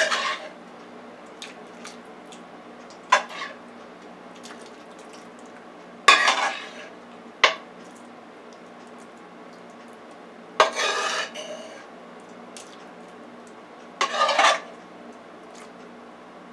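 A metal spoon clanking and scraping against a metal skillet and baking pan as vegetables are spooned out and spread: about six sharp clanks a few seconds apart, one a longer scrape, with faint taps in between.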